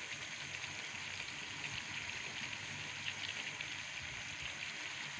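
Cauliflower and pea curry sizzling in a pot on the stove: a steady, soft, fine crackle of the masala and vegetables cooking.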